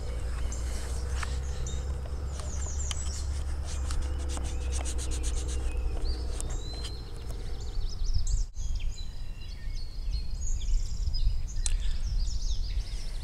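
Birds chirping and calling over a steady low rumble.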